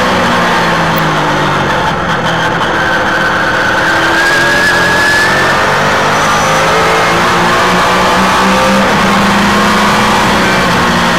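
Trans Am race car's engine at high revs, recorded onboard, pulling hard out of a corner and accelerating up the straight, with a brief dip in level about two seconds in.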